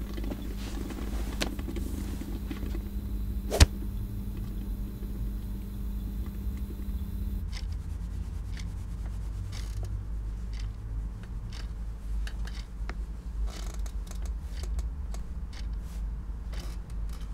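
Quiet room ambience: a steady low hum under a faint hiss, with one sharp click about three and a half seconds in and scattered small ticks and rustles. The hiss drops away about seven seconds in.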